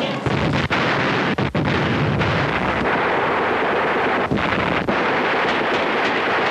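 Battle noise of the Korean War: a dense, steady din of artillery and gunfire.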